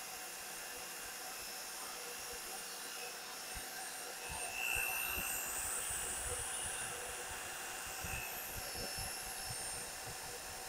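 Homemade cylinder-boring rig cutting a Honda Dio scooter cylinder: a steady motor whir with a high whine that grows louder about four and a half seconds in, with low knocks in the second half.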